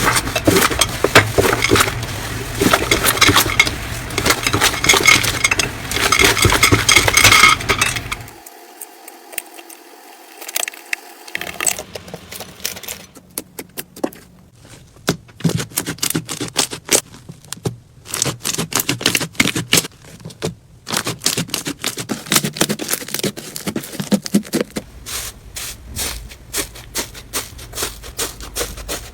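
Slime being squished and pressed by hand, making dense crackling and clicking. About eight seconds in it changes to a quieter hiss, and then to sparser, sharper clicks and pops.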